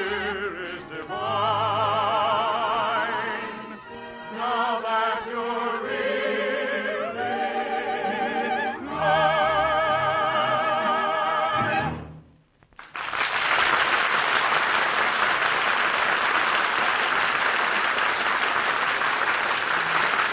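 Operetta singing with strong vibrato over an orchestra, closing on a long held note about 12 seconds in. After a brief pause, a studio audience breaks into applause.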